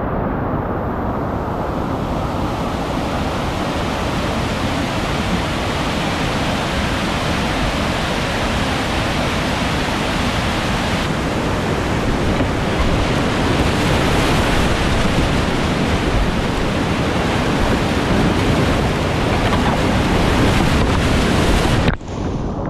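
Whitewater rapids rushing loud and steady, heard up close from the river. Near the end the sound turns suddenly muffled as the camera goes under the water.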